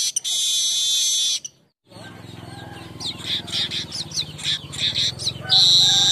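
Manyar (weaver bird) song. A long buzzy trill is followed by a brief break, then a run of short separate chirps over a low steady hum, and the buzzy trill starts again near the end.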